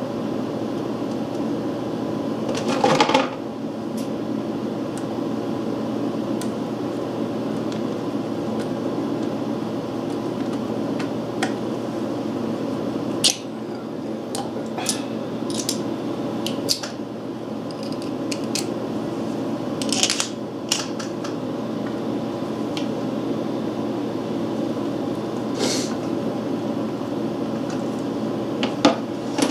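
A steady mechanical hum under scattered small metallic clicks and taps, as a screwdriver and small parts are handled on the steel breaker-point plate of a 1923 Briggs & Stratton Model PB engine.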